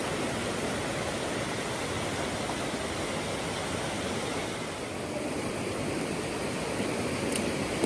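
Steady, even rush of flowing mountain river water.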